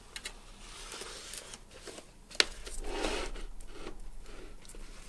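Paper label stock rustling and sliding as it is fed through a thermal label printer's media path, with one sharp click about two and a half seconds in, then rubbing as the media roll is handled.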